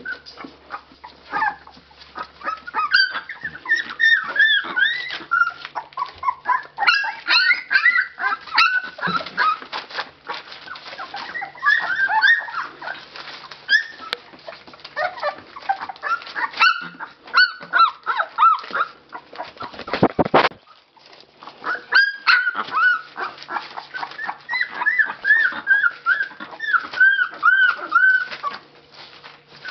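A litter of 19-day-old Labrador Retriever puppies whimpering and squealing: many short, high calls that rise and fall, overlapping almost without pause.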